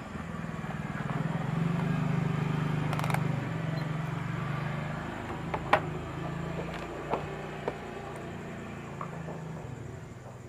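Washing machine spin-dryer motor humming steadily without turning, louder for a few seconds after power is applied, with a few sharp clicks. This is the stalled hum typical of a failed motor capacitor, which the repairer later finds to be the only fault.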